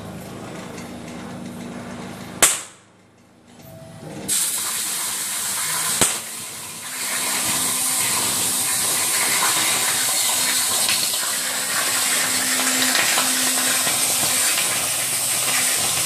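CNC plasma torch cutting steel plate, a steady hiss. About two and a half seconds in a sharp pop cuts it off briefly. The hiss starts again shortly after, with a second pop around six seconds, then runs on steadily and louder.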